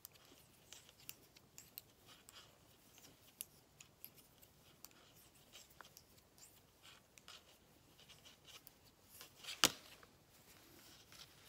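Knitting needles clicking faintly as stitches are worked in cotton yarn, a string of small irregular ticks, with one sharper click a little under ten seconds in.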